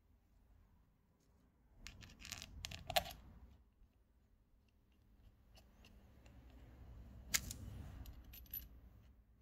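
Small metal parts of a Honda K-series VTC timing gear being handled and fitted together by hand: faint scraping and clinking, with sharp metallic clicks about two to three seconds in and again about seven seconds in, as the limiter pin and cover plate are seated.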